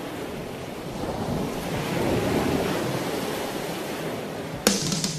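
Wind buffeting the microphone over the rush of water churned up in a moving boat's wake. Near the end, music cuts in with sharp drum hits.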